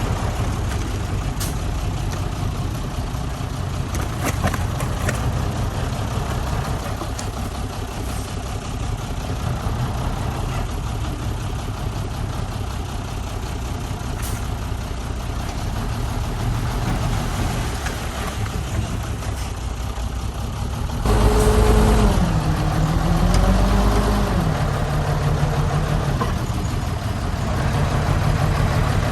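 Heavy diesel engines of earthmoving machinery running steadily. About two-thirds of the way through, one engine revs up louder, its pitch dipping and rising for a few seconds under load, then holds a higher steady note.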